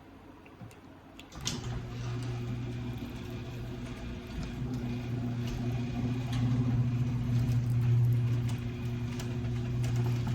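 Chain-drive garage door opener starting about a second and a half in and running steadily with a motor hum. The door clicks and rattles as it travels on its track wheels.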